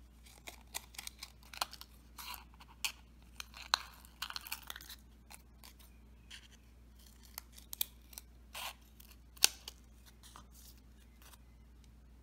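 Scissors snipping through the thin plastic wall of a water bottle, a series of short, irregular cuts with small crackles of the plastic.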